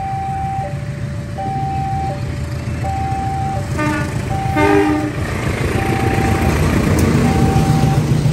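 Railway level-crossing alarm alternating between two tones, each held for about 0.7 s, over the low rumble of a passenger train. The train's horn gives two short blasts about four seconds in, and the rumble of the train passing gets louder after them.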